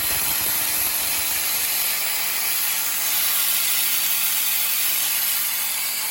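Parkside PPSK 40 A2 plasma cutter's torch cutting sheet metal on a CNC router: a loud, steady hiss of the arc and air jet.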